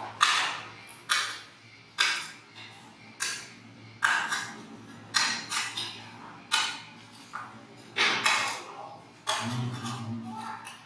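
A series of sharp hits or taps with a short ring, about one a second, over a low steady hum that grows louder near the end.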